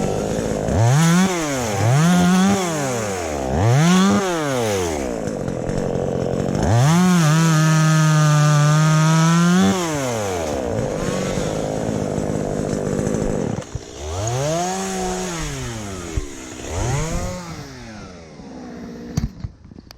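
Two-stroke chainsaw being revved: several quick throttle blips that rise and fall, one held at high revs for about three seconds, dropping back to idle between them. Near the end the engine sound falls away and a few sharp clicks are heard.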